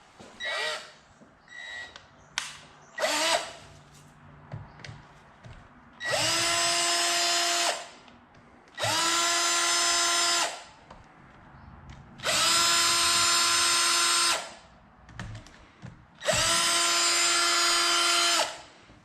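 Power drill running four short bursts of about two seconds each at a steady pitch, spinning out bolts on a YZ85 two-stroke engine after they have been broken loose by hand. A few light clicks of handling come before the first burst.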